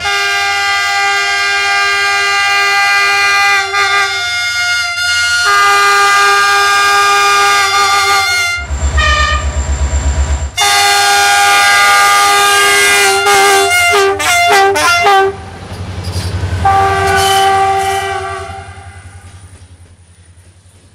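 Train horns sounding in long held blasts, with a cluster of short toots about two-thirds of the way through. A loud low rumble of a passing train comes between blasts around the middle, and the sound fades out near the end.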